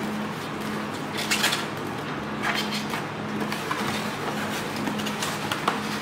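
Cardboard box flaps being pulled open by hand: several short scrapes and rustles of the cardboard and a sharp click near the end, over a steady low hum.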